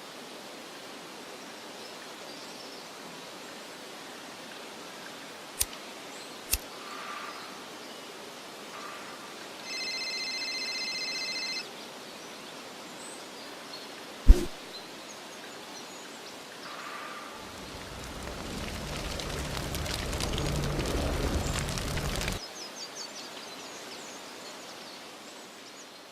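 Steady outdoor background noise, broken by a few sharp clicks, a two-second electronic beep, and a rush of noise that swells for about five seconds and cuts off suddenly.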